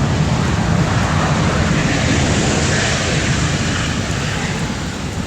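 Steady airplane cabin noise: the low rumble of the engines and the rush of air, running evenly.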